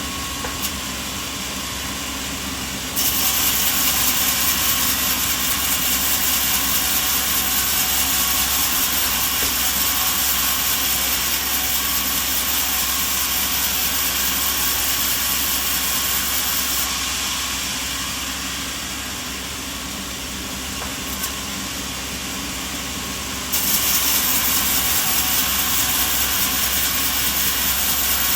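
Sawmill machinery running with a steady drone and a strong hiss. It turns abruptly louder and hissier about three seconds in, eases off about two-thirds of the way through, and jumps up again a few seconds before the end.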